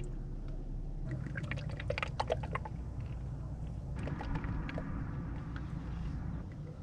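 Engine oil pouring during an oil change, with a quick run of small metallic clicks and knocks about a second in.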